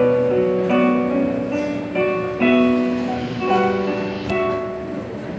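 Electronic keyboard played with a piano sound: slow chords, a new chord struck about every second and left to ring.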